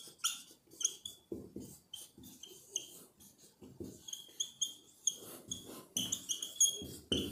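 Writing on a board: a run of short, squeaky pen strokes at an uneven pace, with faint scratching between them.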